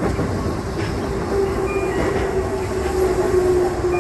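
Keihan electric train heard from the cab while slowing into a station: rumbling running noise with a steady low hum that drifts slightly lower in pitch, and faint wheel clicks over rail joints.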